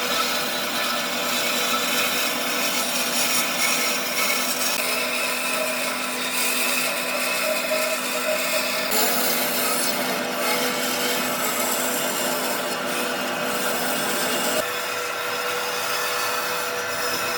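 A power tool working wood: a steady motor hum under a rough, continuous abrasive rubbing, with the sound changing abruptly about nine and fifteen seconds in.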